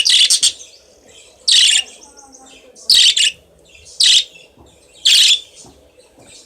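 Pet cage birds chirping: short, loud, shrill calls about once a second, one pair close together at the start.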